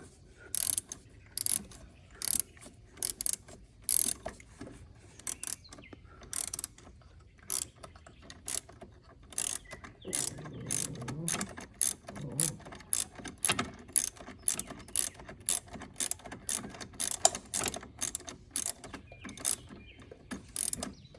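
Hand ratchet wrench clicking in uneven runs of strokes with short pauses, turning a nut or bolt.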